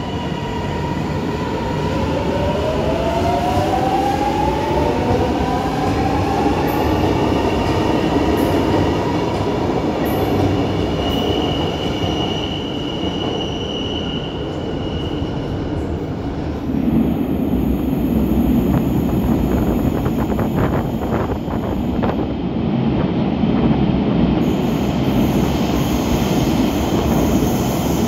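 Milan Metro ATM series 900 train's traction motors whining, several tones rising together as it pulls away, over steady wheel and rail rumble. A high steady whine follows, then heavier rumble and wheel noise of a train running through the tunnel.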